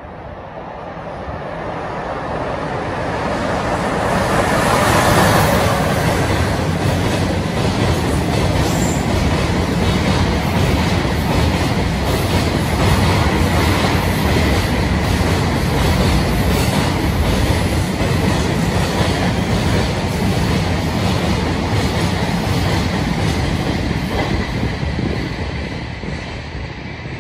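Long freight train passing on an elevated line. It swells over the first five seconds into a steady heavy rumble of wheels on rail, with a rapid rhythmic clatter of wheels over rail joints and a faint thin whine, then fades near the end.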